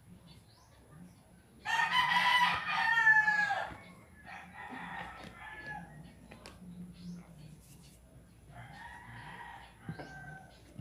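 A rooster crowing loudly about two seconds in, followed by two fainter crows.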